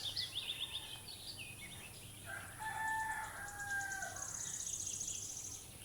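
Birds calling outdoors: quick, falling chirps from small birds, then a longer call held for about two seconds in the middle, and a fast high trill near the end.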